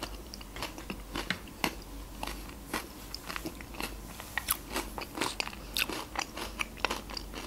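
Close-miked mouth sounds of eating yogurt off a spoon: many short, wet clicks and smacks of the lips and tongue as it is chewed and swallowed.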